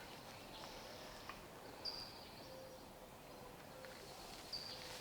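Faint outdoor ambience with a bird's short high-pitched call heard twice, about two seconds in and again near the end.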